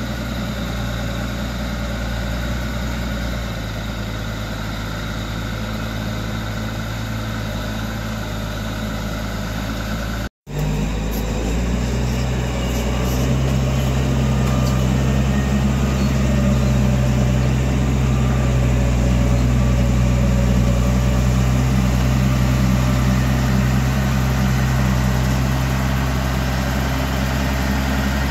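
Komatsu motor grader's diesel engine running with a steady hum. After a brief break about ten seconds in, it is heard close by and louder.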